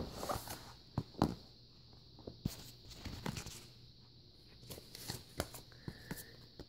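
Cardboard picture cards and game pieces being handled and laid on a game board: scattered light taps and paper rustles.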